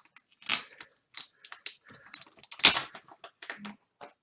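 Comic book being handled, an irregular run of crackles, clicks and rustles from its paper and packaging. The loudest come about half a second in and again a little past halfway.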